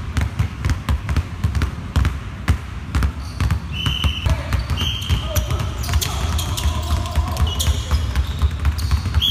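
Basketballs dribbled hard and fast on a hardwood gym floor, several players at once, a rapid stream of bounces. A few short high squeaks, sneakers on the court, cut in after a few seconds.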